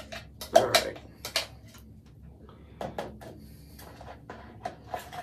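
Blender jar and spatula knocking and scraping against a bowl as thick blended ice cream is emptied out: a few sharp knocks in the first second and a half, then lighter taps and scrapes.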